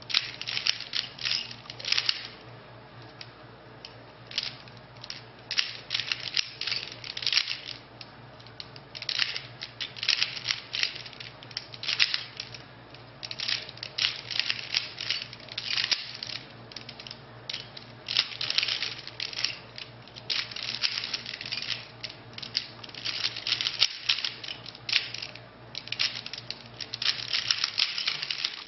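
A Rubik's Cube being turned fast by hand during a solve: runs of quick plastic clicks as the layers snap round, broken by short pauses.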